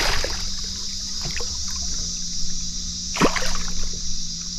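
Water sloshing and trickling against the side of a small boat, with a brief splash about three seconds in, over a steady high hiss.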